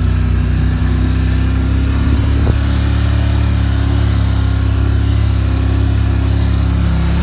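Polaris quad bike (ATV) engine running steadily as the quad drives across rough grass, heard from on board.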